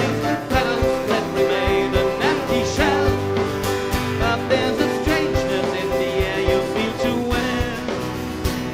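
Live band playing a folk-rock song, guitars over a steady drum beat, here in a passage without transcribed vocals.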